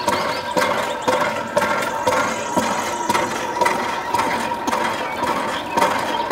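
A small motor running steadily, with a repeating click about twice a second.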